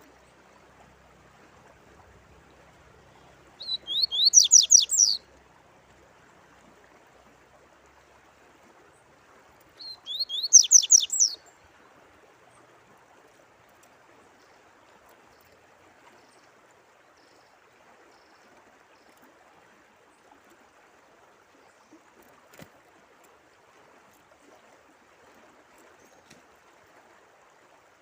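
A songbird singing two short phrases of rapid, sweeping high notes, about four seconds in and again about ten seconds in, over faint steady running water.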